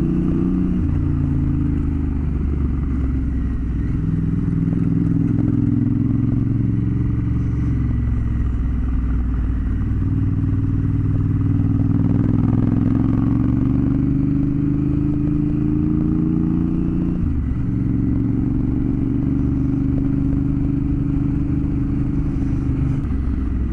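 Adventure motorcycle engine running under way on a dirt road. Its revs rise and drop back several times; the longest climb ends in a sharp drop about seventeen seconds in.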